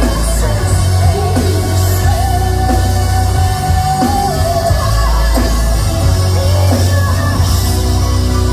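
A live symphonic metal band playing, with a woman singing long held notes with vibrato over heavy bass and drums. The sound is recorded from the audience, so the bass is boomy.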